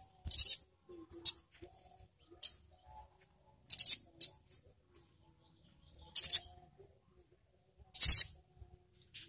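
Male olive-backed sunbird (sogon) giving short, sharp, high-pitched chirps in separate bursts, about seven of them, the loudest about 8 s in.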